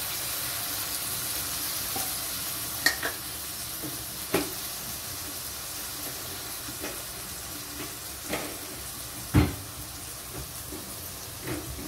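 Vegetables sizzling in a metal wok with a little hot water just added, the hiss slowly settling. A wooden spatula knocks against the pan about five times, loudest about nine seconds in.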